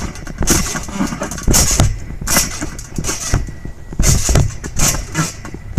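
Backyard trampoline mat taking repeated bounces, a deep thump with a swishing hiss about once a second as the jumpers land and rebound. The phone sits at the level of the mat, so the landings come through heavy.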